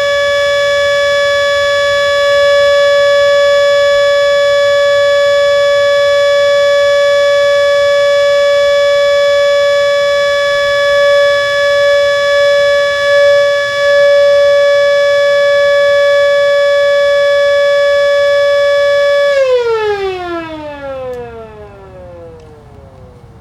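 Miniature Model 2 warning siren sounding one steady tone. About 19 seconds in it is shut off and winds down, its pitch falling and fading as it coasts to a stop at the end of its three-minute test run.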